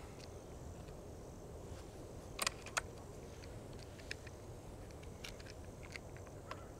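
A few light clicks of loading and handling the Hatsan Flash Pup PCP air rifle and its rotary pellet magazine. Three sharper clicks come close together about two and a half seconds in, with fainter ones after.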